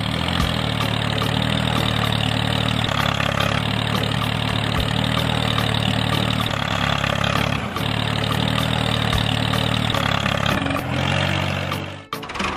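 Tractor engine running steadily at an even speed, with a short break about twelve seconds in.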